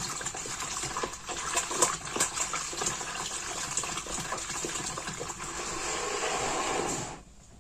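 Water running steadily, with small clicks and knocks of a plastic bucket being handled, cutting off suddenly near the end.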